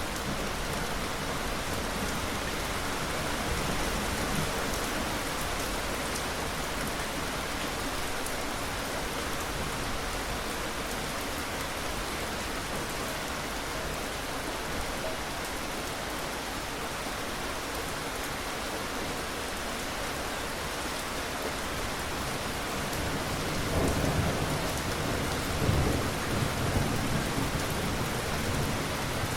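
Steady rain falling, with thunder rumbling low for a few seconds near the end.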